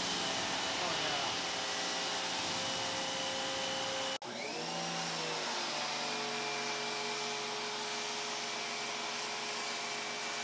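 Giraffe Tools Grandfalls G20 electric pressure washer running with its spray jet going: a steady hiss with a motor whine. It cuts off abruptly about four seconds in and starts straight up again, its whine shifting in pitch before it settles.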